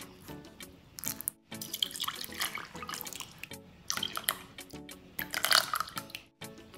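Liquids poured into a ceramic mixing bowl of batter ingredients: vegetable oil from a jug, then white vinegar and red food colouring from a metal measuring spoon. They trickle and splash in several short spells, the loudest about five and a half seconds in, over light background music.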